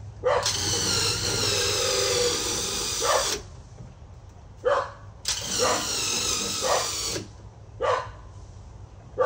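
A power tool's motor running in two bursts of about three and two seconds, switched off between them, with a dog barking briefly in the pauses.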